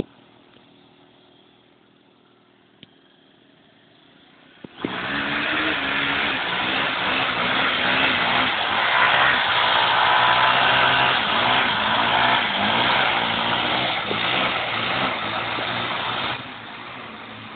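Honda XR250 Tornado's single-cylinder four-stroke engine revving up and down hard. It starts suddenly about five seconds in after a faint stretch and drops back shortly before the end.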